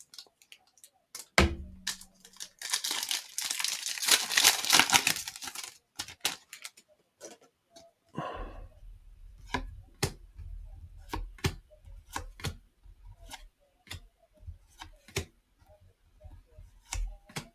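Foil trading-card pack torn open, a crinkling rip lasting about three seconds, followed by a long run of sharp clicks and taps as the cards inside are handled.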